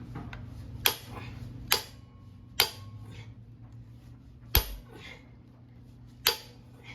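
Five sharp hammer blows on a hand impact screwdriver, about one to two seconds apart, driving at the stuck screws of an engine side cover.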